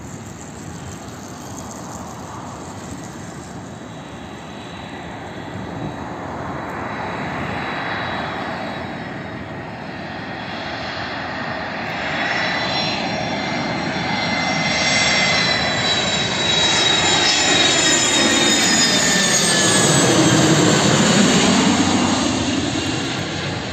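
Antonov An-72's two turbofan engines growing steadily louder on landing approach. A high whine falls in pitch as the aircraft passes overhead about twenty seconds in.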